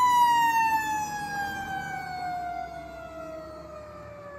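A fire truck's mechanical siren winding down, its single wail falling smoothly and steadily in pitch and fading.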